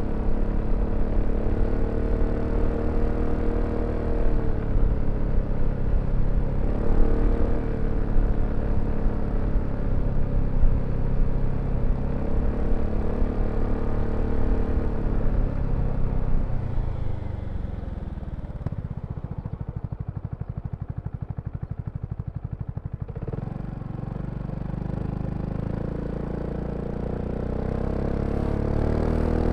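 BMW C400X scooter's single-cylinder engine under way, its note rising and falling with the throttle. About two-thirds through it drops to a slow, even idle for a few seconds, then climbs again as it pulls away.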